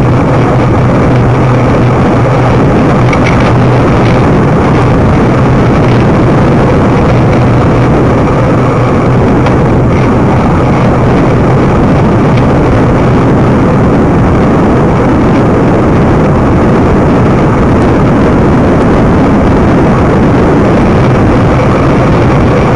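Loud, steady wind noise on the microphone of a camera carried on a moving bicycle, with a steady low hum beneath it.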